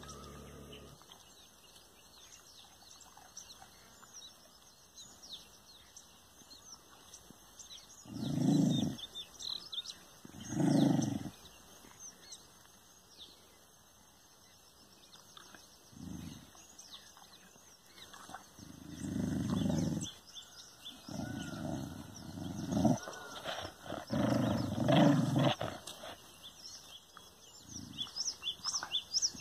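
A dog growling at its own reflection in a mirror, in several low growls of a second or two each, with a quicker run of short growls near the end. Birds chirp throughout.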